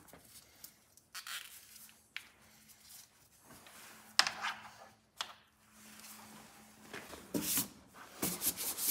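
Scattered rustling and handling noises with a few sharp clicks of parts being worked on by hand in a car's engine bay; the handling gets busier near the end.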